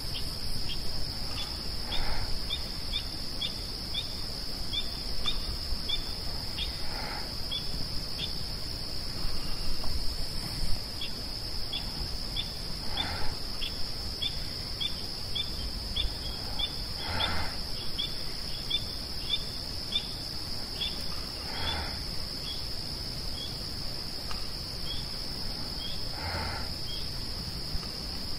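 A bird calling agitatedly in a rapid run of short, sharp chips, about two to three a second, over a steady insect chorus of crickets. A lower, harsher call repeats roughly every four to five seconds.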